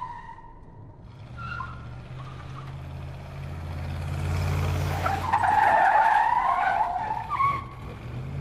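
Electric motors of radio-controlled model construction machines (a model excavator and a model dump truck) running, a wavering high whine over a low hum. The whine comes in strongly about five seconds in and fades near the end.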